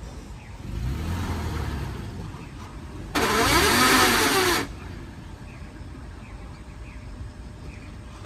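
Toyota Prado's engine starting and running, then about three seconds in a much louder abnormal noise, lasting about a second and a half, whose pitch dips and rises. Onlookers suspect broken ring-and-pinion or differential gears, typical of gear damage that shows up in forward gears.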